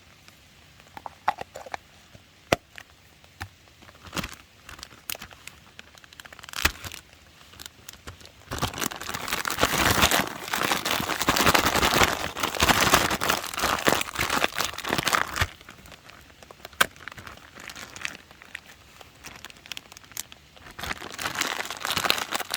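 Packaging being handled and crinkling: scattered crackles and rustles at first, then a dense stretch of crinkling lasting several seconds from about a third of the way in, then sparser crackles and more crinkling near the end.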